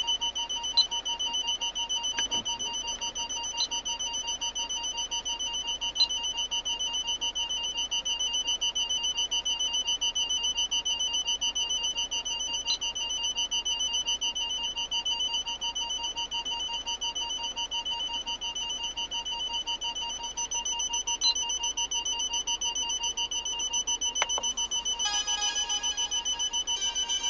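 Car parking sensor warning sounding as rapid, evenly spaced high-pitched beeps that never let up. The beeping comes doubled, from the factory parking sensor system and through the aftermarket Bosion BX-440 head unit at once. A few faint clicks fall in between, and other tones join near the end.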